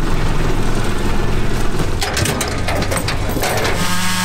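Tractor engine running steadily, with a burst of cracking and snapping branches about two seconds in.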